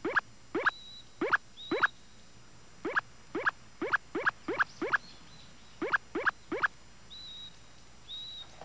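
Cartoon squeak sound effects for fingers rubbing and tugging a character's dog ears: about fifteen short squeaks, each rising quickly in pitch, in three quick clusters. A few faint, high, brief chirps sound between them.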